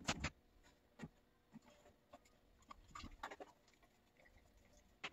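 A dog's claws tapping and scraping on a plastic training platform as it shifts its feet: a sharp pair of taps at the start, then a few fainter taps scattered through the quiet.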